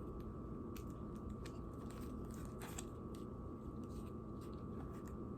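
Faint crinkling and scattered soft clicks of wax paper being peeled off the bottom of a cake layer, the paper tearing as it comes away, over a faint steady hum.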